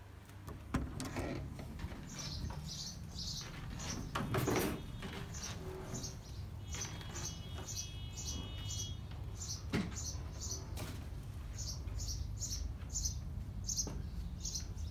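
A bird chirping over and over, about two short high chirps a second, over a steady low rumble, with a few brief knocks.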